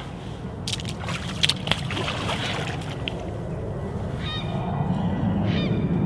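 Wind buffeting the microphone, with a few sharp clicks about a second in, then short honking calls, several of them from about four seconds in.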